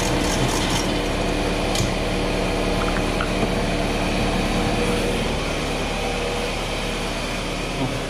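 Steady mechanical hum of a running machine, holding several fixed tones, with a few light clicks in the first two seconds.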